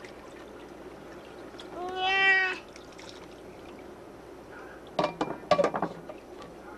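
A young child's short, high-pitched vocal call about two seconds in, rising and then held for under a second. A quick cluster of sharp knocks follows about five seconds in.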